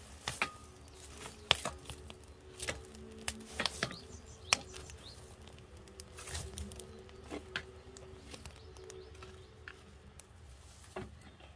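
Wood fire burning in an open stove firebox, crackling with irregular sharp pops and snaps.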